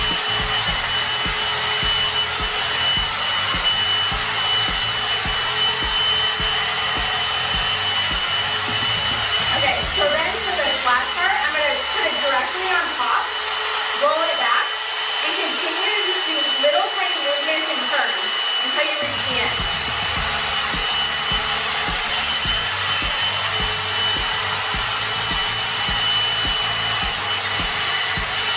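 One-step hot air brush (hair dryer brush) running steadily: a constant rush of air with a steady high-pitched whine from its motor.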